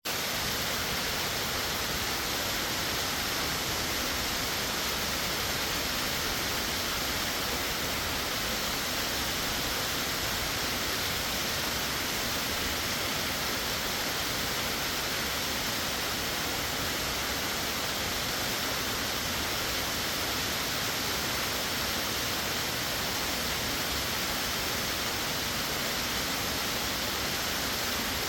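A waterfall of about 75 ft plunging into a narrow rock canyon: a steady, unbroken rush of falling water, bright and hissy, that does not change.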